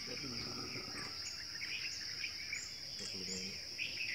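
Steady high-pitched chorus of night insects, such as crickets, with scattered short chirping calls over it.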